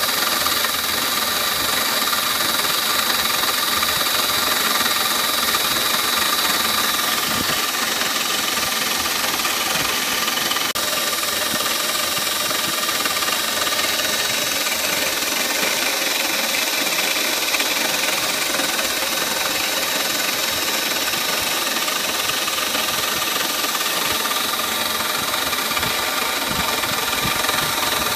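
CNC milling machine running an end mill through clear plastic in a finishing pass that cleans up the first rough cut, a steady hiss of cutting under a high spindle whine.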